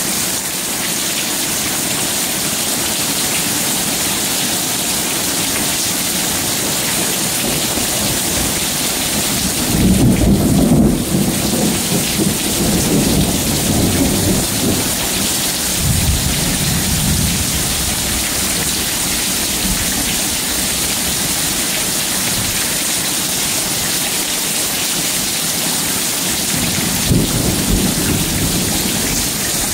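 Thunderstorm: heavy rain falling steadily, with a loud low thunder rumble rolling in about a third of the way through and lasting several seconds, and a shorter rumble near the end.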